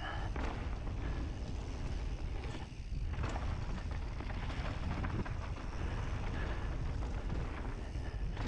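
Mountain bike riding down a dirt trail: wind rushing over the microphone over the crunch of tyres on dirt and rock and the bike's rattling and knocking, with a brief dip about three seconds in.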